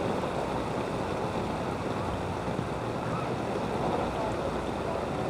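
Steady sloshing and swishing of floodwater as someone wades through it.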